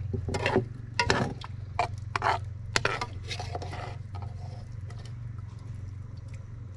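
A utensil scraping and stirring in a cooking pot: about six short strokes in the first four seconds, then it stops, over a steady low hum.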